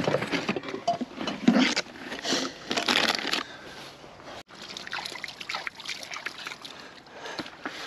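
Gear clattering and rustling as it is handled in a car boot. After a sudden cut about halfway through, water sloshes and splashes at a muddy river edge as a bucket is dipped in.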